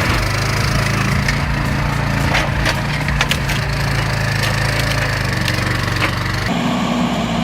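A forestry machine's engine running steadily while wood creaks, cracks and splinters in repeated sharp snaps. About six and a half seconds in, the sound cuts abruptly to a different engine running.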